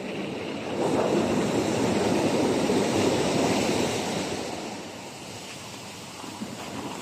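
Sea waves washing onto the shore: a surge of surf rises about a second in and fades away a few seconds later.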